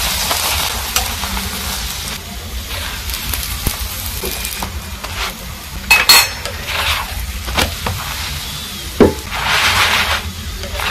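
Chapati sizzling as it fries in oil on a hot heavy pan, with a few sharp clinks and knocks of a utensil against the pan, the loudest about six and nine seconds in. The sizzle swells briefly near the end.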